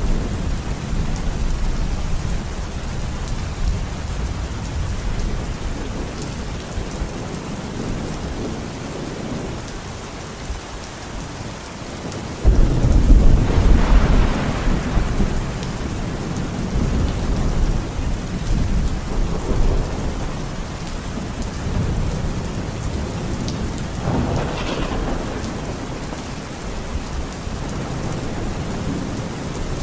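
Heavy rain falling steadily, with thunder: a sudden loud clap about halfway through that rolls on for a few seconds, and a weaker rumble later.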